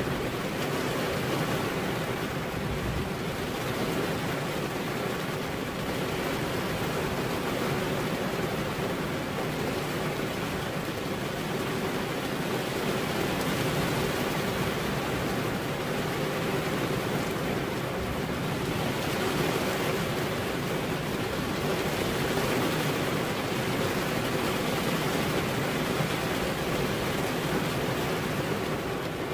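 Rain falling steadily, an even hiss with no separate drops, knocks or thunder standing out.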